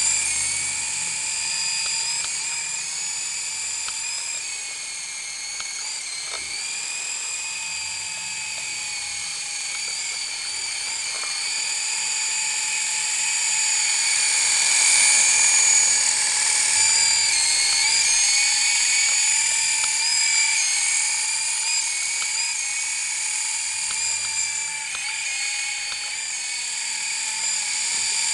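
Syma S033G coaxial RC helicopter's electric motors and rotors whining in flight: a high whine that wavers in pitch as the throttle changes and grows louder and fainter as the helicopter moves about, loudest about halfway through.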